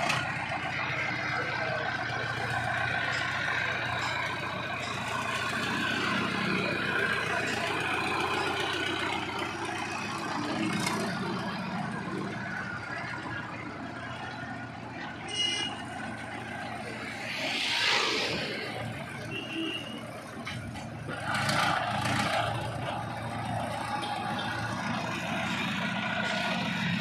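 Sonalika 750 DI tractor's diesel engine running steadily as the tractor drives with its front loader, with road traffic around it. A louder whoosh swells and fades about eighteen seconds in.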